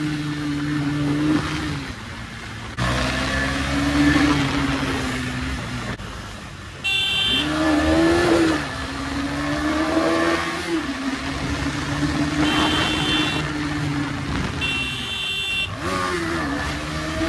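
KTM 250 Duke's single-cylinder engine pulling hard at speed, its pitch climbing and dropping as the rider works the throttle and shifts gears, with wind rushing over the microphone. A vehicle horn honks briefly three times, about 7, 12 and 15 seconds in.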